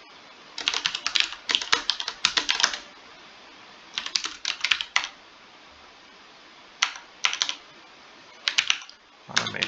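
Computer keyboard typing: several bursts of rapid keystrokes separated by short pauses, as a password and shell commands are entered.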